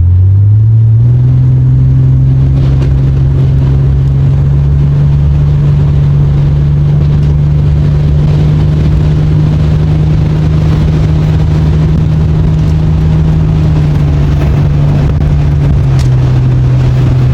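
Car engine and road noise heard from inside the moving vehicle's cabin: a steady low drone that rises in pitch over the first second as the car speeds up, then holds at cruising speed, easing down slightly near the end.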